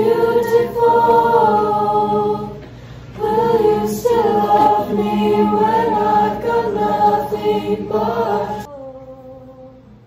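Show choir singing together, their voices crusty. The singing comes in two phrases with a short break about two and a half seconds in, and stops about a second and a half before the end.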